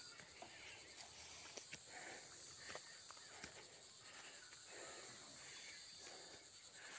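Faint footsteps through grass and dry leaves on a steep path, soft scuffs about once a second with a few small twig clicks.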